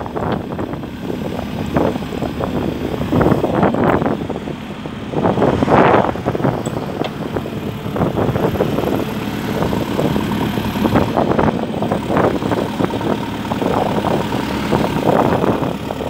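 JCB 3CX backhoe loader's four-cylinder diesel engine idling steadily, with gusts of wind buffeting the microphone now and then.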